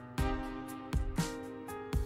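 Background music: sustained instrumental notes over a steady beat.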